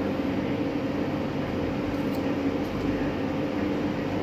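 Steady mechanical hum of running machinery, a low even drone with a fixed pitch.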